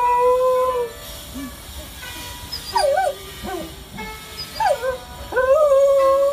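Dog howling in drawn-out notes: one long held note at the start, short wavering howls that slide up and down about three and five seconds in, and another long held note near the end.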